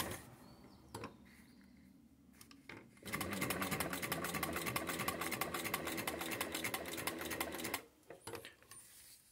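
Singer 31-15 industrial sewing machine, driven by a servo motor, stitching through layered leather: a fast, even clatter of the needle mechanism that starts about three seconds in, runs for about five seconds and stops abruptly, with a few light clicks around it.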